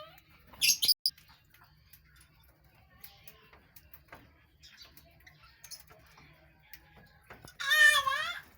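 Colony of budgerigars chirping: a burst of sharp, high chirps about half a second in, then scattered quieter chirps and clicks. Near the end a loud, wavering, high-pitched call lasting about a second.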